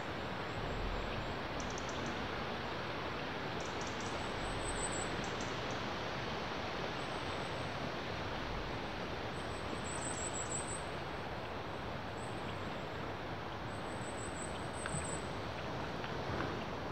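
Steady outdoor hiss of wind moving through woodland trees, with a few faint high chirps.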